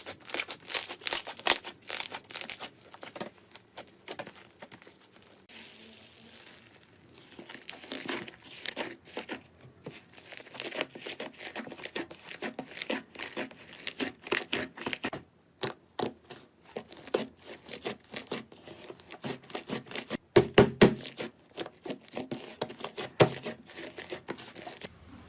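Slime being squeezed and pressed by hand, making a dense run of crackling, popping clicks. The loudest pops come in a cluster about twenty seconds in.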